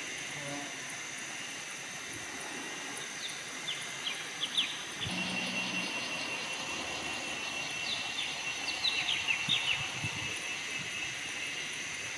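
Forest ambience: a steady high drone of insects, with a bird calling in quick runs of short falling chirps about four seconds in and again around nine seconds.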